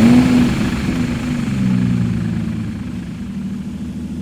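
Stihl MS211C chainsaw's two-stroke engine running at a high idle. Its pitch rises at the start, wavers and dips a little after about a second and a half, then holds steady. The high idle, which does not come down however the new carburetor is adjusted, is what the owner blames on leaking crank seals.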